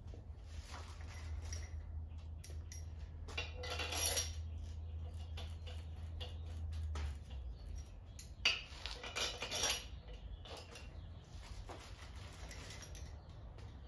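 Steel cylinder head bolts and their washers clinking together in short bouts as they are handled in a gloved hand and set into the cylinder head. A low steady hum underneath stops about seven seconds in.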